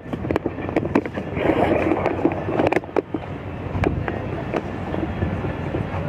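Steady outdoor rumble with wind buffeting the phone microphone, dotted with short clicks and knocks of handling as the camera is moved.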